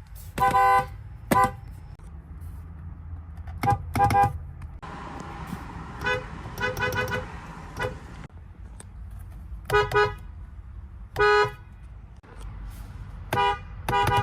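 Infiniti car horns sounding in short toots, some single and some in quick pairs or triplets, each honk two notes sounding together, over a steady low rumble.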